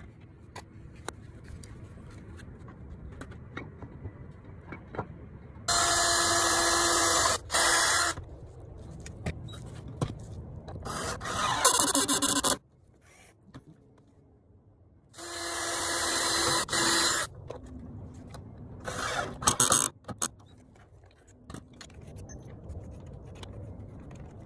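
Cordless drill driving screws into wooden boards: four short runs of a whining motor, each a second or two long, some stopping and restarting. Light knocks and scrapes of handling the lumber come between the runs.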